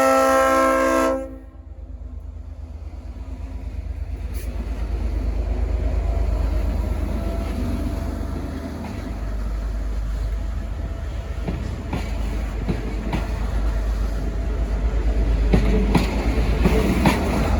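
A Leslie RS5T five-chime air horn on a V/Line N class diesel locomotive sounds a loud chord that cuts off about a second in. The departing train then rumbles steadily past, and near the end its wheels click over the rail joints.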